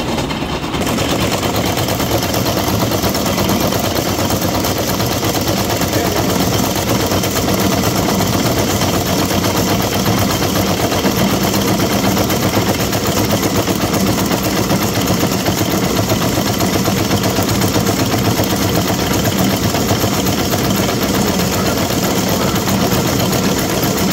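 Farmall Cub tractor's four-cylinder engine running steadily under load, driving a grist mill that is grinding corn; a loud, even mechanical din with no breaks.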